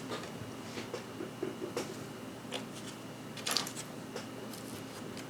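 Small tools and items being handled on a watchmaker's workbench: a few faint clicks and taps, with a slightly louder brief scrape about three and a half seconds in.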